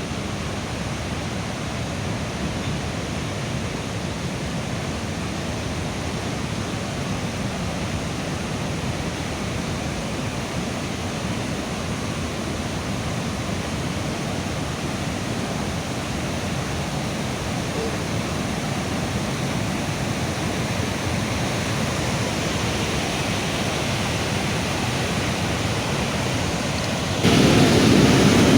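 Continuous rushing of floodwater, a steady noise with no distinct events. Near the end it jumps abruptly louder and deeper.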